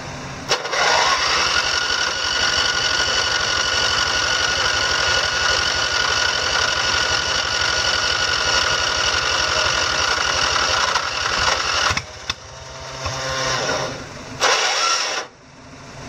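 Riding mower's electric starter cranking its fuel-flooded single engine for about eleven seconds without it catching, a fast pulsing churn with a steady whine, then stopping and giving a few shorter bursts near the end. The engine is flooding because its carburettor needle valve is thought not to be closing, and the starter gear gives out.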